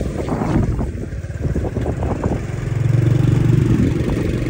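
Small motorcycle engine running steadily while the bike rides along, with a few short knocks and rattles in the first couple of seconds and the engine getting louder about three seconds in.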